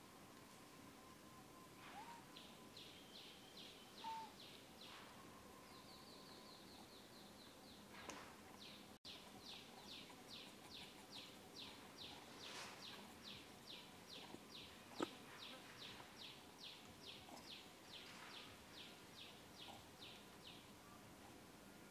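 Faint outdoor background with a bird repeating a long series of short, high, evenly spaced notes, about three a second, after a brief trill. A few faint clicks are also heard.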